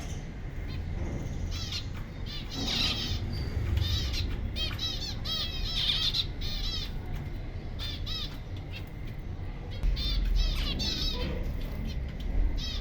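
Several zebra finches calling, with many short high chirps in quick runs over a steady low rumble.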